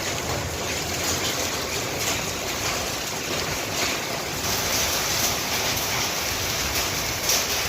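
Heavy rain pouring down in a dense, steady hiss, with occasional brief sharper hits on top.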